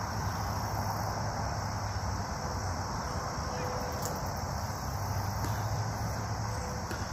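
Steady outdoor background: a constant insect chorus with a low, steady rumble underneath.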